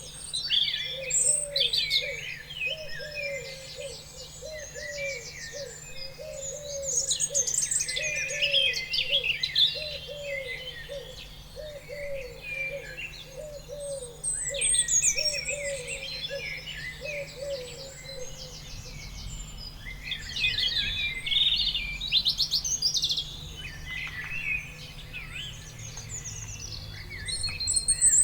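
Several songbirds singing and chirping together, with quick high trills and warbles. A lower, short call repeats about twice a second through the first two-thirds, then stops.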